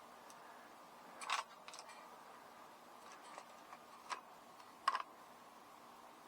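Several light clicks and taps from handling a CO2 pellet handgun, the loudest just before five seconds in.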